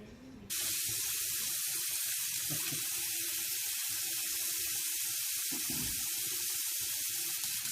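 Steady hiss of running water, as from a tap, starting abruptly about half a second in and holding at one level.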